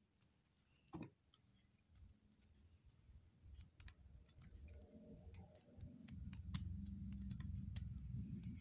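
Faint, scattered small clicks and taps of hands handling cut pieces of raw fish on a wooden cutting board. A low steady rumble comes up about six seconds in and carries on under the clicks.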